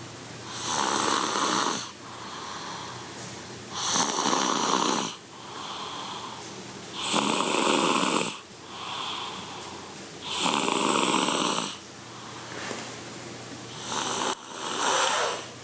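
Slow, steady snoring: five loud snores about three and a half seconds apart, each lasting over a second, with softer breathing sounds between them.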